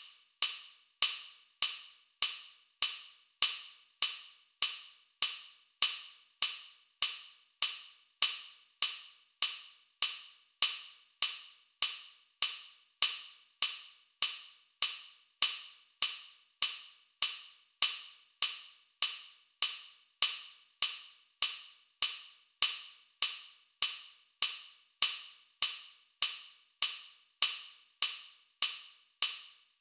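Metronome click track ticking steadily at 100 beats per minute: one short, sharp click about every 0.6 seconds, each dying away quickly.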